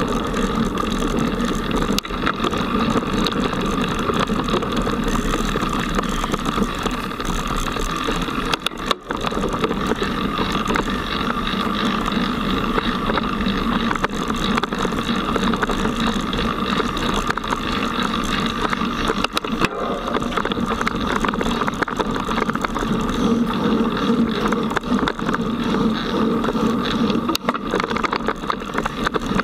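Mountain bike ridden fast over a dirt forest trail, heard through a handlebar-mounted action camera: a continuous rattle and rumble of the bike and its tyres on the ground, mixed with wind on the microphone. The noise is steady, with a brief dip about nine seconds in.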